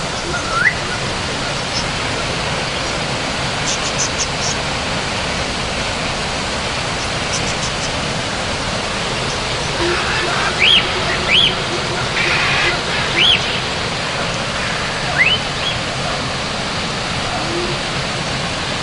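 Waterfall plunging into a rocky pool, a steady loud rushing of falling water. About halfway through, a few short rising whistle-like calls cut briefly above the rush.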